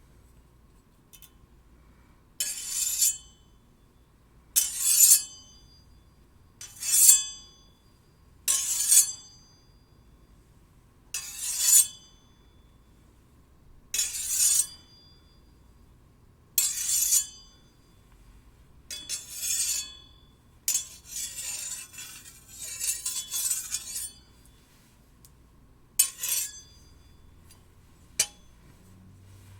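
Steel blades struck and drawn against each other, a bright metallic ring on each of about ten strokes spaced a couple of seconds apart. Past the middle comes a longer stretch of scraping.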